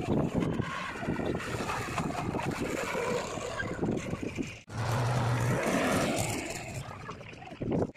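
Diesel engines of farm tractors and a JCB backhoe loader running under work. The sound breaks off sharply a little over halfway through and picks up again at once.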